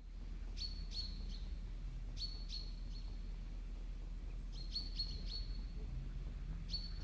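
A small bird chirping: groups of three or four short, high notes repeat every couple of seconds, over a faint, steady low hum.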